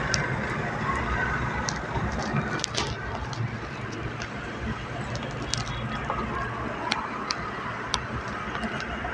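Low, steady traffic rumble heard from inside a car in slow, congested traffic, with scattered sharp light clicks now and then.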